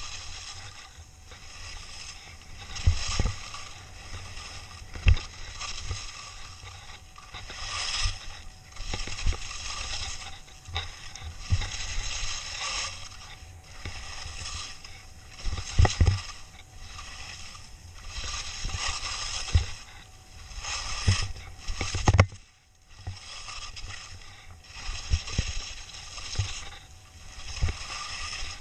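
Skis carving down a steep mogul run. The edges scrape and swish over the snow in surges every second or two, one surge per turn. Sharp knocks come now and then as the skis hit bumps.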